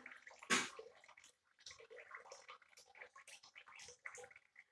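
Faint trickling and dripping of a thin tap stream into a washbasin of water, with small splashes as a small monkey moves in the water; one louder splash about half a second in.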